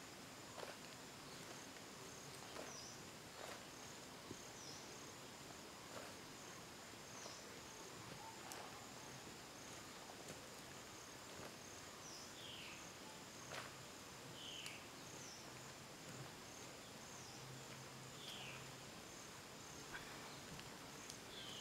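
Quiet forest ambience: a steady high insect drone with a short chirp repeating every second or so, and a few falling whistled calls in the second half. Faint scattered clicks and rustles come from the woven vine basket being handled.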